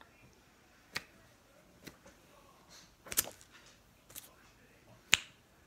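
Plastic dice being handled and spun at a wooden table: a few scattered sharp clicks and taps about a second apart, the loudest near the end.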